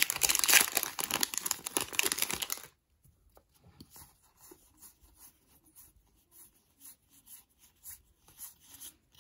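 Pokémon booster pack's foil wrapper being torn open and crinkled, which stops abruptly under three seconds in, followed by faint rustling and soft ticks of the cards being handled.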